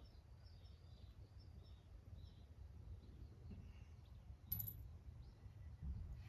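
Quiet background with a low rumble and faint, short, high chirping, and a single sharp click about four and a half seconds in.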